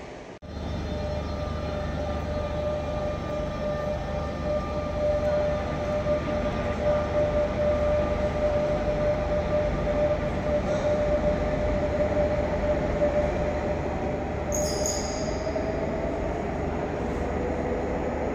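Electric commuter train pulling away through an underground station, a steady running noise with a held whine that rises slightly in pitch near the end. A short high wheel squeal comes about fifteen seconds in.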